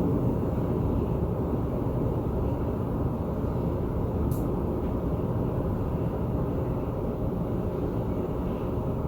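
Thunder rumbling low and continuously through a thunderstorm, with one brief sharp tick about four seconds in.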